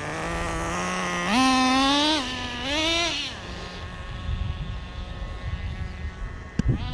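Small nitro glow engine of a Traxxas Nitro Rustler RC car running, revving up twice in the first few seconds, then its tone fading away about three and a half seconds in, leaving a rough low rumble and a couple of sharp clicks near the end.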